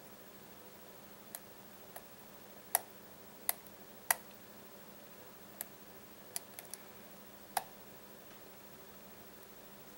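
Baldwin pin-tumbler lock cylinder being picked with a tension wrench and pick: about ten sharp, irregularly spaced clicks as the pick works the pins. The loudest clicks come between about three and four seconds in and once more near eight seconds.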